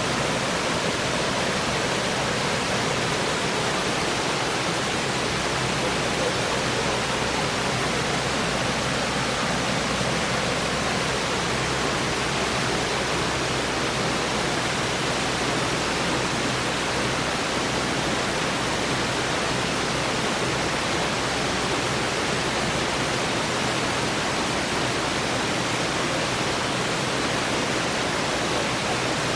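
Steady rushing of a waterfall, an even roar of falling water without a break.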